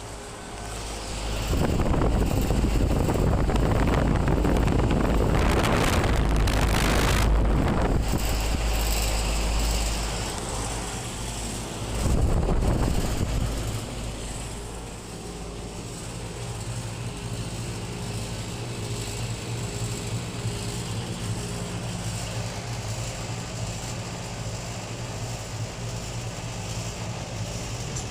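Outdoor HVAC units running with a steady low hum. For the first ten seconds a louder rushing noise, like wind on the microphone, covers the hum, and it surges again briefly around twelve seconds in.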